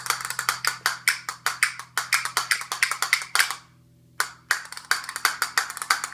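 Castanets clicking in quick, uneven runs of sharp wooden clicks, with a short break a little past the middle.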